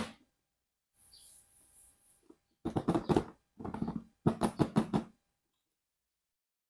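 Plastic toy packaging being handled: a short rustle, then three runs of rapid clicking and crackling, each under a second long.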